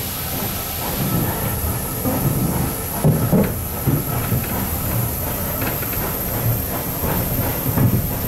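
Railway carriage wheels running along the track, heard from the side of the moving train: a steady rumble with a few heavier knocks from the rail joints, about three seconds in and again near the end.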